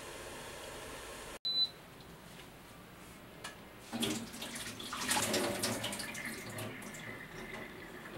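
Tap water running into a stainless sink, splashing over a mesh strainer of cooked tapioca pearls as they are rinsed, with small clinks; it starts about four seconds in. Before that, the steady hiss of the pot of pearls simmering, broken off by a short high electronic beep.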